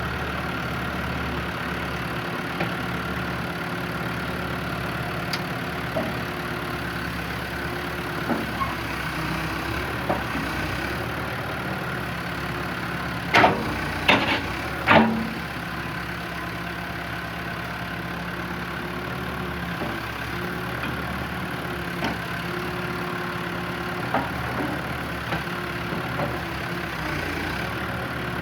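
New Holland LB115 backhoe loader's four-cylinder diesel engine idling steadily, with scattered light clicks and three loud metallic knocks close together a little under halfway through.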